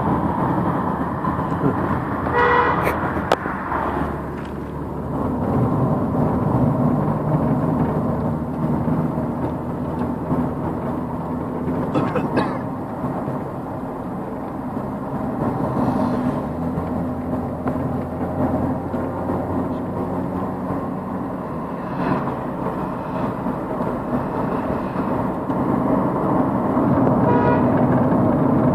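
Engine and road noise of a moving car, heard from inside the cabin, with the low engine drone rising and falling in pitch. A vehicle horn honks briefly about two and a half seconds in and again near the end.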